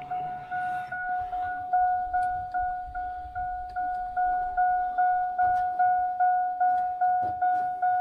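Chevrolet Avalanche's warning chime sounding over and over, an even electronic bong about two and a half times a second, the alert a GM truck gives with a door open while the key or the headlights are on.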